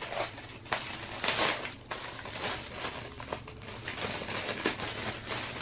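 Packaging crinkling and rustling as a small box is opened and its contents unwrapped by hand, in irregular bursts, the loudest about a second and a half in.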